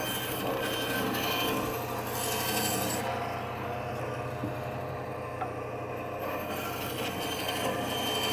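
LEM tabletop meat band saw running, its blade cutting crosswise through frozen bone-in beef short ribs with a steady rasping over the motor's low hum. The rasp grows louder and then eases as each slice goes through.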